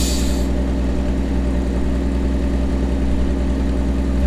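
1949 White WB-20 tow truck's carbureted gasoline engine idling steadily. A brief hiss of air cuts off about half a second in.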